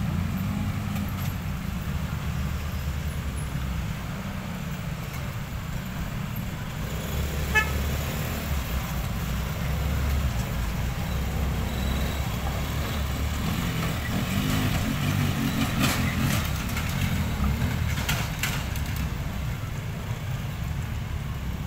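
Road traffic at a railway level crossing: motorcycle, minibus and truck engines running steadily as they pass at low speed, with horn toots.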